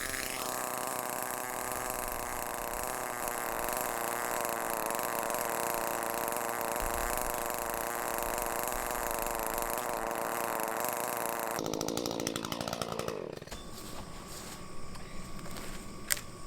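Echo two-stroke chainsaw held at full throttle, cutting wood, for about twelve seconds; then the throttle is let off and the engine revs fall away. A few sharp knocks near the end.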